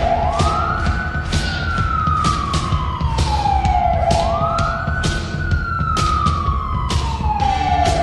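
Hockey arena goal siren of the 1992–93 Providence Bruins, wailing in long cycles: each cycle rises quickly, then falls slowly, one about every four seconds. Sharp percussive hits and a low rumble sound along with it.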